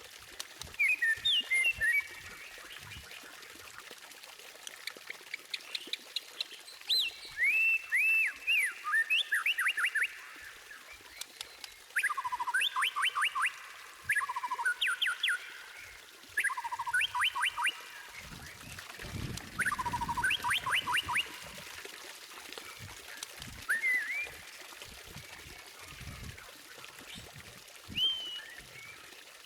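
White-rumped shama (murai batu) singing: varied whistled phrases and several fast runs of sharp repeated notes, with short pauses between phrases.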